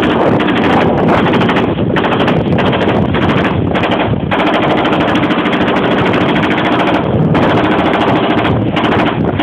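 Shipboard machine gun firing long bursts of rapid automatic fire, with short pauses about 2, 4 and 7 seconds in.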